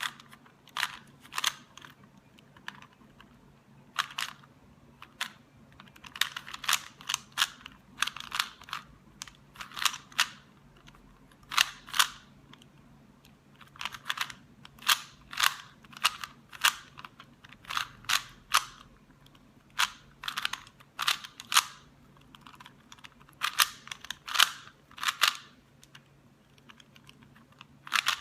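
A 3x3x3 Rubik's Cube being turned fast by hand in a speedsolve: its plastic layers click and clack in quick runs of turns, broken by short pauses of a second or so.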